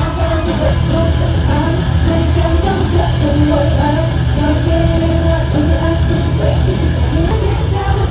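Live concert music with a singer, played through an arena sound system and heard from the stands, with a heavy, steady bass under the sung melody.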